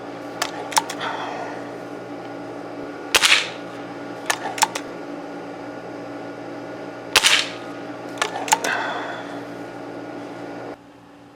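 Crosman Diamondback Nitro Piston .177 break-barrel air rifle firing twice, about four seconds apart, with sharp metallic clicks before and after each shot, over a steady hum.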